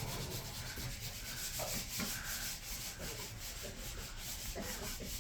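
Hand polishing on the car: a cloth rubbing back and forth over the surface in fast, even strokes.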